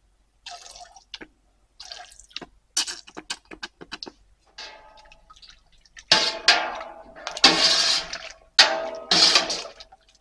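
Thick gelatinized corn mash being stirred in a pot: a series of wet sloshes and splashes, sparse at first and louder from about six seconds in, as alpha amylase enzyme is mixed in to thin the mash.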